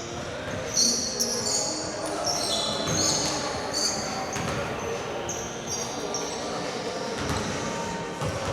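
Basketball game on a gym court: sneakers squeaking sharply on the floor again and again, and the ball bouncing, over a background of voices echoing in the hall.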